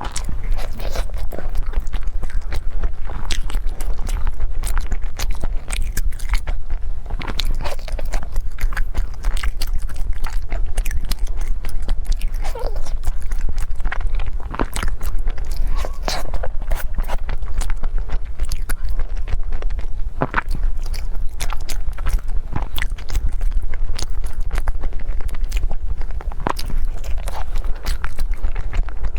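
Close-miked eating: chewing and biting food, a steady stream of irregular small clicks and smacks of the mouth.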